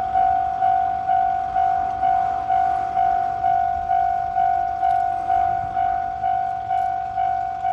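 Japanese railway level-crossing alarm ringing its 'kan-kan' warning tone, an even series of bell-like strikes about two a second, each fading before the next.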